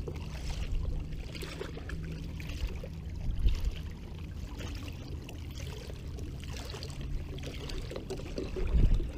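Shallow marsh water sloshing and swishing with each wading step, about one a second, with a louder slosh near the end.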